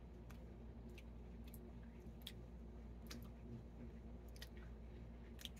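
Faint mouth clicks and lip smacks of people chewing cotton candy, about ten small scattered ticks over a low steady room hum.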